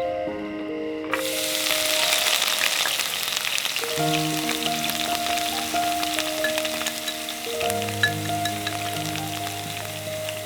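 Cooking fire crackling and sizzling: a dense hiss full of small pops that starts suddenly about a second in. Soft background music plays throughout.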